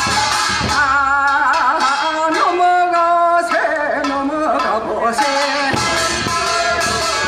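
Korean folk labour song of charcoal workers: a voice sings a long wavering melodic line while the drum beats drop out, the drums playing in the first second and coming back in near the end.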